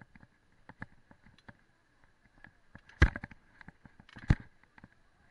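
Mountain bike rattling over a tiled path: irregular clicks and knocks from the bike, with two loud thumps about three seconds in and again a second or so later.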